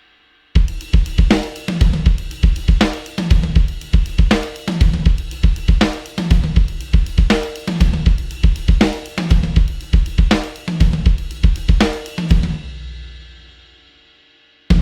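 Sampled acoustic rock drum kit (EZdrummer 3 'Into the Dark' EZX) playing a steady beat of kick, snare, hi-hat and cymbals. It starts about half a second in and stops about two seconds before the end, leaving a ringing tail that fades out.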